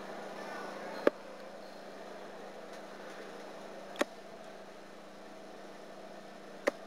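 Three darts striking a dartboard one after another, each a short sharp thud, about a second in, about four seconds in and near the end, over a faint steady hum and murmur of the hall.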